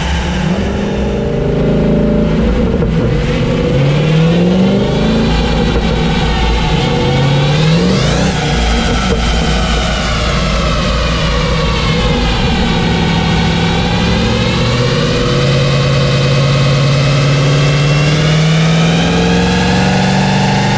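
Jaguar S-Type R's supercharged 4.2-litre V8 under load on a rolling-road dyno. It revs up in pitch to a peak about eight seconds in, drops away, then climbs again and holds steadier toward the end. The drive wheels are spinning on the dyno rollers.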